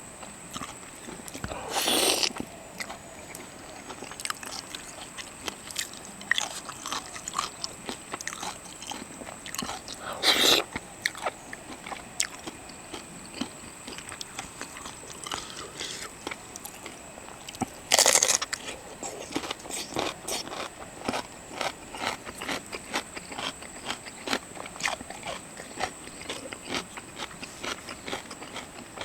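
Close-up eating sounds: seafood being chewed and bitten, with many small crunches, clicks and mouth smacks. Three louder, harsher noises of about half a second stand out: one near the start, one about a third of the way in, and one a little past the middle.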